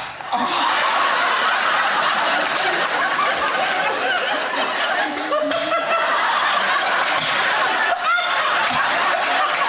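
Studio audience laughing loudly and steadily.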